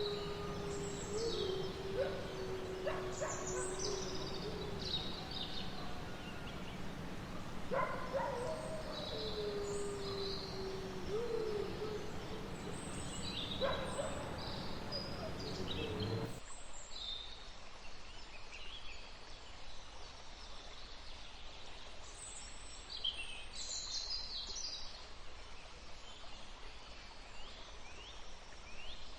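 Forest ambience: a wolf gives two long, slightly wavering howls over a steady background hiss, with small birds chirping throughout. About halfway through, the background cuts abruptly to a quieter recording with only birdsong.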